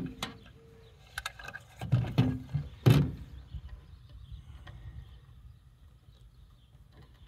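Handling knocks and clicks from a metal line extender housing and its 90-degree connector fitting being worked by hand on a table: a few light clicks, then two louder knocks about two and three seconds in, after which it goes quiet apart from a low background rumble.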